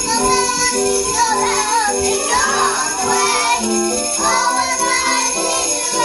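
Sleigh bells jingling steadily over a music track with a clear melody of held notes stepping up and down.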